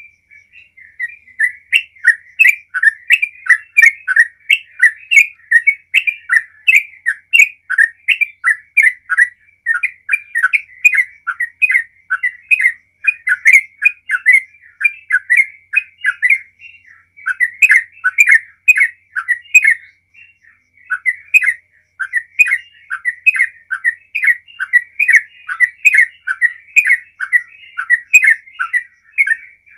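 Yellow-vented bulbul (trucukan) singing a long, almost unbroken run of quick, loud notes, about three a second, with a couple of short breaks near the middle: the continuous 'gacor ropel' song that keepers prize.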